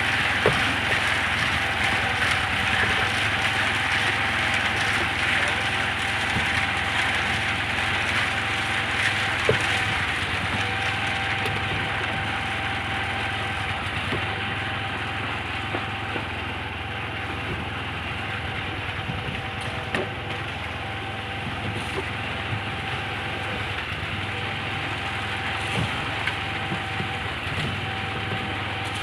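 An engine running steadily, with scattered sharp knocks over it.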